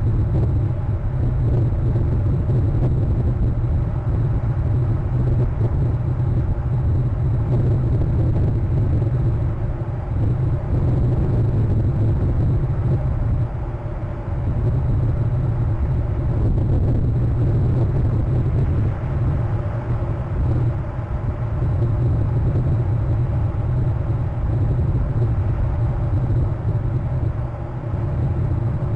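A steady low rumble with a hiss above it, dipping slightly in level now and then.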